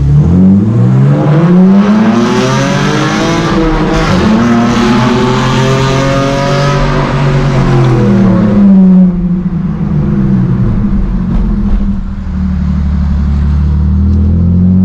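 BMW Z4 E85 engine through a straight-through exhaust with catless headers, accelerating hard in a tunnel. The note climbs twice, at the start and again about four seconds in, then falls away as the car slows and settles into a steady run.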